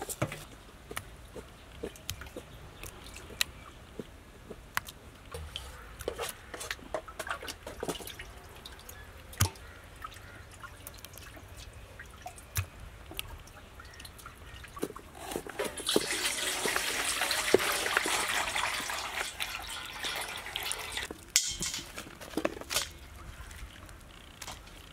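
Water dripping and splashing as wet murrel (snakehead) fish pieces are handled over a metal plate, in scattered small drips and taps. A steady rush of water runs for several seconds about two-thirds of the way in.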